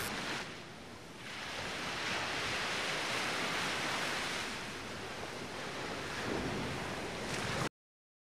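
Sea surf: waves washing in a steady hiss that swells and ebbs, then cuts off abruptly near the end.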